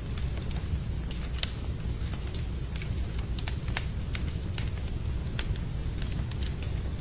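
Wood fire burning in a fireplace: a steady low rumble of the flames with frequent irregular crackles and pops, one sharper pop about one and a half seconds in.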